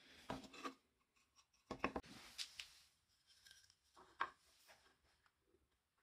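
Plywood pieces being handled and set in place on a worktop: light knocks and scrapes of wood in short clusters. They come just under a second in, around two seconds in (the loudest), and a little after four seconds in.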